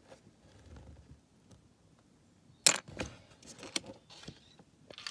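Small plastic Lego pieces clattering in a plastic bin: a sharp click just past halfway, then a short rattle of smaller clicks.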